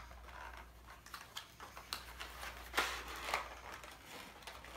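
Cardboard packaging box being opened by hand: small scrapes and clicks of flaps and plastic, with a louder rustle about three seconds in.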